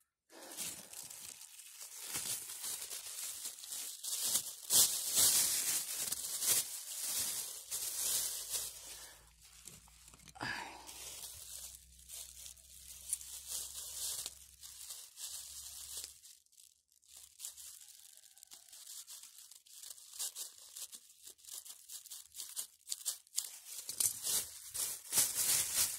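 Plastic bag being handled, crinkling and crackling in bursts, loudest in the first few seconds and again near the end. A faint low hum runs underneath through the middle.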